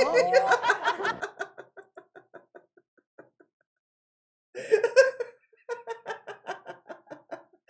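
A man laughing hard, in quick breathy pulses that fade away in the first second and a half, then burst out again loudly about four and a half seconds in and carry on as rapid, hiccuping pulses, laughing to the point of tears.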